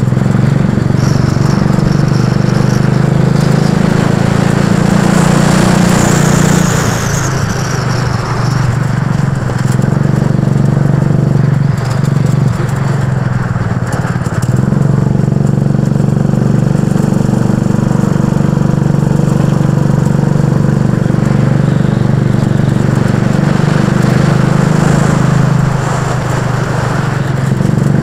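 Go-kart engine running continuously while the kart is driven, loud at the onboard microphone; its note drops briefly a few times and picks up again.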